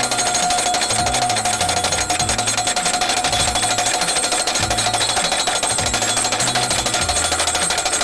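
Hydraulic hammer of a post-driving machine pounding a steel post in a rapid, steady stream of blows, over background music with a low, shifting bass line.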